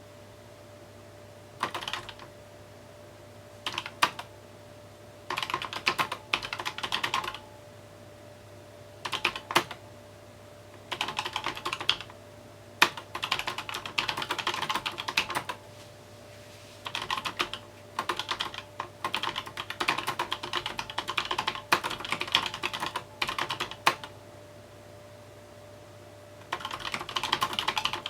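Typing on a mechanical keyboard: bursts of rapid keystrokes separated by pauses of one to three seconds, with a few single, sharper key strikes.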